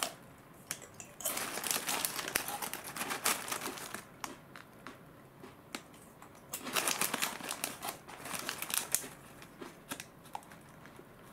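Foil snack bag crinkling as it is handled, in two spells: one from about a second in lasting roughly three seconds, and another from about six and a half to nine seconds.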